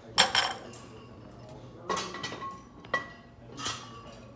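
Metal barbell and weight plates clanking, four sharp clinks about a second apart, the first the loudest, some with a brief metallic ring.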